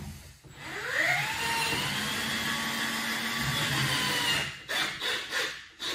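Cordless drill-driver spinning up with a rising whine about half a second in, running steadily for about three seconds as it drives a black drywall screw through a skirting board, then stopping. A few knocks follow near the end.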